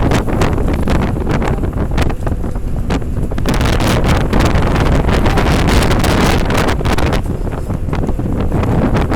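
Wind buffeting the microphone hard in irregular gusts, over the road and engine noise of a fast-moving intercity bus.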